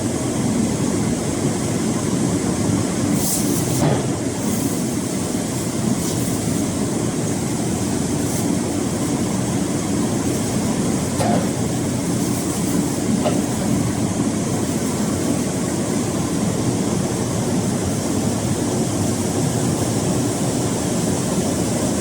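Steady mechanical din of industrial machinery running, with a few brief knocks about three, four, eleven and thirteen seconds in.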